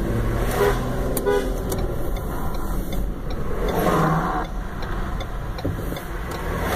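Car driving along a road, heard from inside the cabin: a steady engine and tyre rumble, with two brief higher tones, one about a second in and another around four seconds in.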